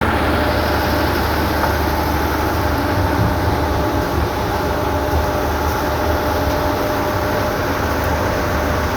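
Sandvik tracked mobile crushing plant with its CAT diesel engine running steadily. It gives a loud, even low rumble with a dense mechanical hiss and a faint steady whine.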